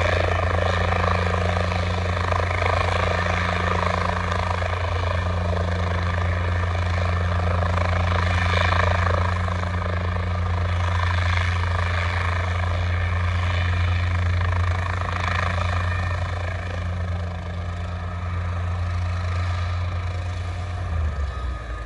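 Guimbal Cabri G2 light piston helicopter hovering low and settling onto the pad: a steady low rotor beat over the hum of the engine and shrouded tail rotor. It grows gradually quieter as it sets down, and the low rotor note drops near the end.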